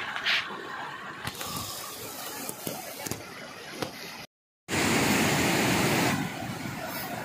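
Ambika River running fast over rock ledges in muddy rapids: a steady rush of water. The sound cuts out for a moment about four seconds in, then comes back louder for a second or so.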